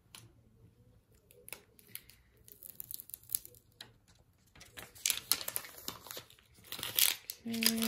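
Transfer tape being peeled off the backing sheet of a cut vinyl decal: crackling and paper rustling, sparse at first and louder and denser in the second half.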